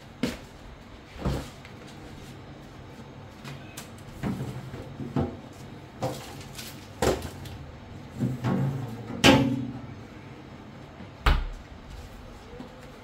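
A series of about ten sharp knocks and clacks of objects being handled and set down, the loudest about nine seconds in.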